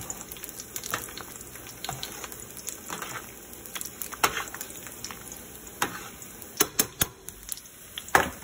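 Sliced garlic sizzling in olive oil in a frying pan, a steady crackling hiss. A spoon stirs linguine in a pot of boiling water, with sharp clicks and knocks scattered through, several in quick succession about two-thirds in.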